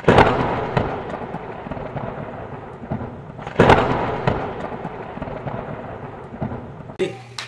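Thunder-crack sound effect, twice: each a sudden loud crash that trails off into a crackling rumble, the second about three and a half seconds after the first. Near the end it cuts to a quiet room with a low steady hum.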